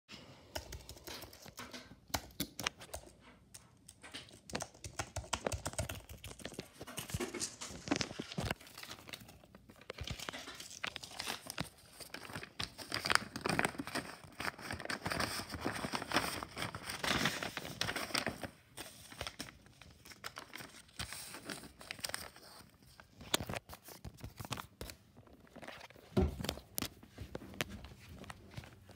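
Paper rustling and crinkling as sheets are handled, with scattered irregular clicks and taps; busiest and loudest about halfway through.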